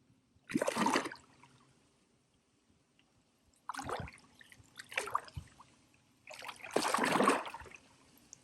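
Water splashing four times as a fish is held in the water beside the boat for release, its longest and loudest splash near the end.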